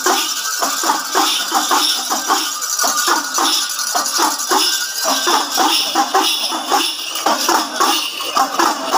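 Kerala temple ritual percussion: small hand drums beaten in a fast, steady rhythm, with brass bell belts and small cymbals jingling over them as the dancers move.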